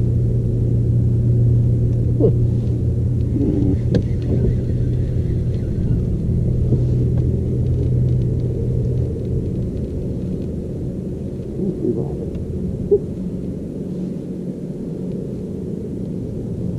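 A boat's electric trolling motor hums steadily, easing off about nine seconds in, with a few light clicks and knocks from the fishing gear on the deck.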